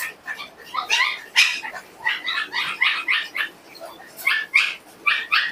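Pomeranian dogs yapping in quick runs of short, high-pitched barks.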